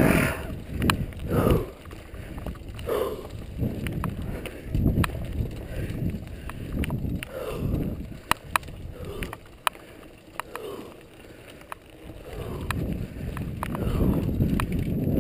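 Mountain bike running down a rocky dirt trail: tyres rumbling over loose stones in uneven surges, with frequent sharp clicks and knocks from the bike.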